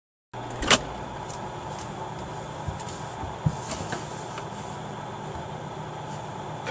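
Steady indoor hum with a few light knocks and clicks; the sharpest knock comes just under a second in and another about three and a half seconds in.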